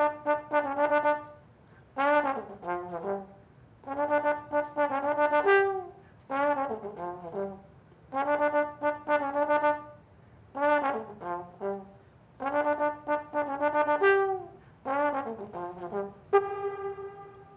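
Solo brass instrument playing a string of short phrases, one every two seconds or so, several ending in a falling slide. A faint steady high-pitched whine runs underneath.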